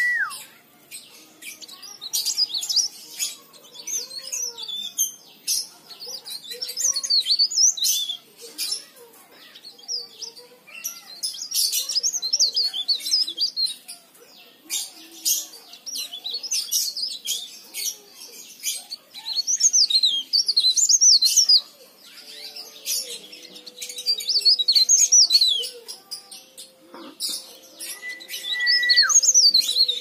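Caged cikrak daun (leaf warbler) singing: bursts of fast, high twittering phrases every few seconds, with short clicks between them. Near the end a steady high whistle holds for about a second and drops away as it stops.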